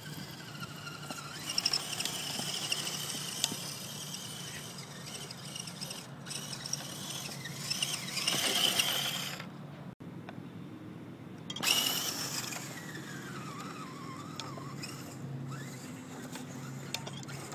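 Electric RC rock crawler (Axial SCX10) with a brushed 35-turn motor running under throttle: a high whine from the motor and geared drivetrain that rises and falls as it is driven, with a short break in the whine about ten seconds in.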